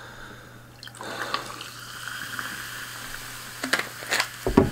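Sparkling water poured from a plastic bottle into a highball glass of ice, with a steady fizzing hiss. Near the end come a few plastic clicks as the bottle is capped and one sharper knock.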